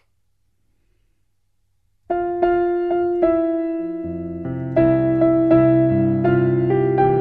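Near silence, then about two seconds in a piano starts playing a slow gospel passage of struck chords, with lower bass notes joining about two seconds later.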